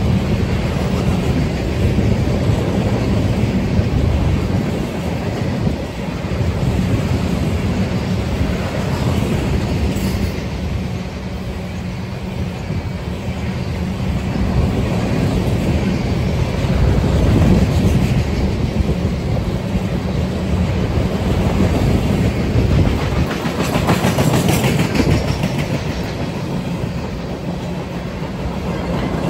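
Freight cars of a CSX steel train, bulkhead flatcars loaded with steel, rolling past at speed: a steady heavy rumble with wheels clicking over the rail joints.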